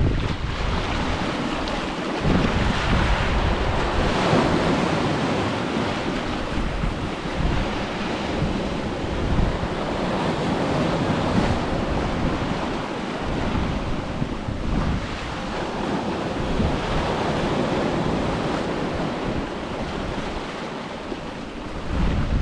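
Ocean waves washing onto a beach in a steady, swelling rush, with wind buffeting the microphone in low gusts.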